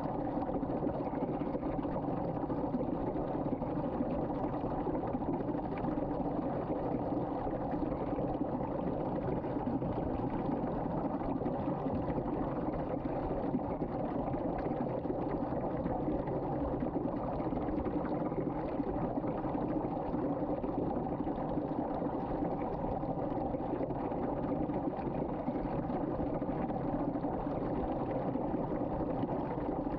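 Water swirling down a sink drain in a vortex, a steady rushing and churning of draining water.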